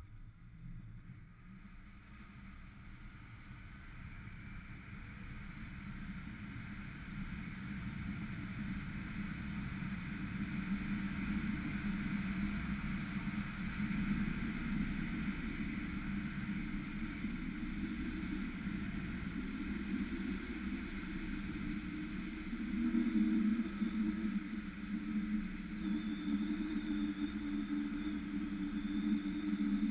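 Zip-line trolley running down the steel cable with wind rushing past, growing steadily louder as speed builds. A steady hum comes in more strongly about two-thirds of the way through, and a thin high whine joins near the end.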